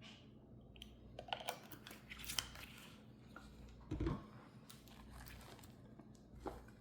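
Irregular crinkling and clicking handling sounds at low level, with one dull thump about four seconds in.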